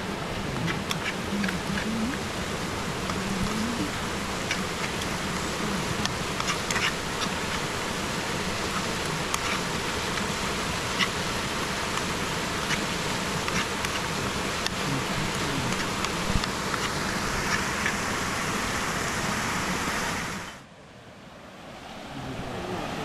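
A fly buzzing on and off over a steady outdoor rushing noise. Near the end the rushing drops away abruptly, then slowly comes back.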